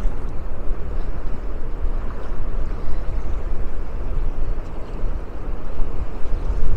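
Wind buffeting the microphone outdoors: a gusty low rumble that swells and eases irregularly.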